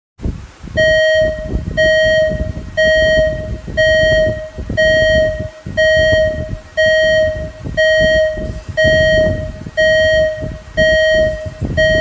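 Electronic warning-alarm sound effect: a mid-pitched beep repeating about once a second, over crackling, distorted glitch noise.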